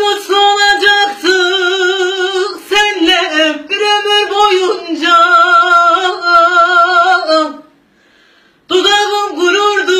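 A woman singing solo with no accompaniment: long held notes with wide vibrato and ornamented turns. She breaks off about three-quarters of the way through, then starts a new phrase about a second later.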